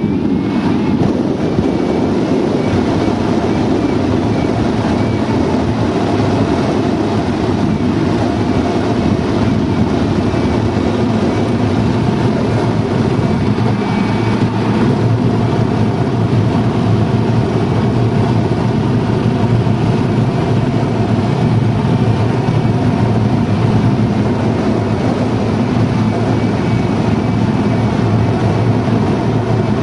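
Steady rushing airflow in a glider's cockpit in flight, with no change in level.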